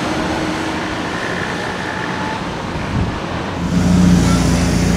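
Traffic noise from cars driving along a road, then, about three and a half seconds in, a Lamborghini Aventador's V12 running steadily at low revs as it pulls slowly away.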